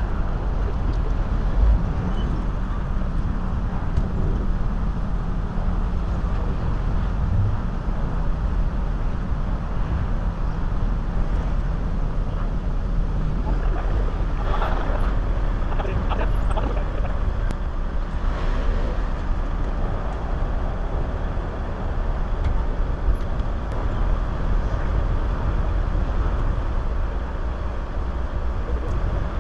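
Road traffic at a busy city intersection: a steady low rumble of car engines and tyres, with a busier stretch of passing-vehicle noise around the middle.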